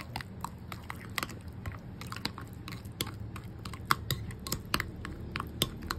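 Thick mayonnaise-and-oil marinade paste being stirred, with wet squishing and quick, irregular clicks of the utensil against its container.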